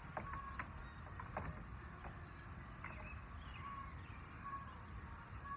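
Faint outdoor ambience: a steady low rumble of wind on the microphone, with short thin bird chirps scattered through it and a few light taps in the first second and a half from work on the wooden window frame.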